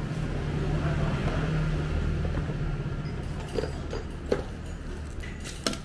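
Low engine rumble of a passing road vehicle, fading away over a few seconds. Light clinks of chopsticks and tableware against a bowl come through a few times in the second half.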